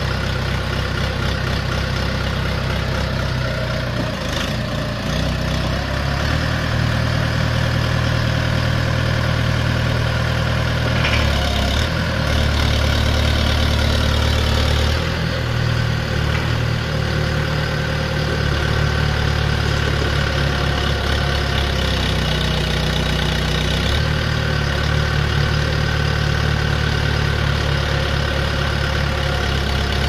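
Small backhoe loader's diesel engine running steadily while the rear backhoe arm is worked. The engine note steps up and down several times as the hydraulics take and release load, louder from about six seconds in to about fifteen seconds, and again from about twenty-four seconds.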